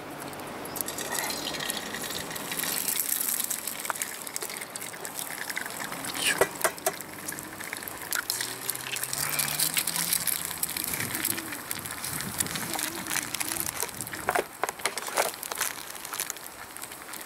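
Eggs sizzling in hot oil in a small aluminium frying pan over charcoal, the hiss rising about a second in as the first egg goes into the oil. Scattered sharp clicks and taps as a second egg is cracked against the pan and dropped in.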